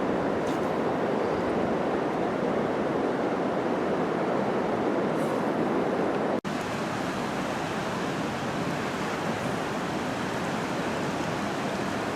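Steady rush of river water through rapids, an even noise that cuts out for an instant about six seconds in.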